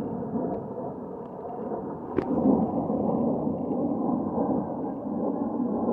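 Steady rumble of a pair of aircraft flying high overhead, with a single sharp click about two seconds in, after which the rumble is a little louder.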